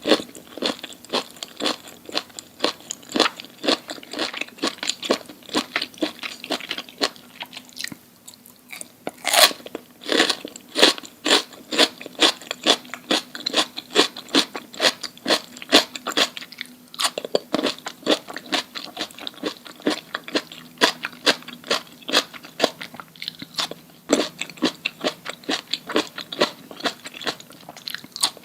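A person chewing crunchy food close to the microphone: a steady run of sharp, rapid crunches, pausing briefly twice.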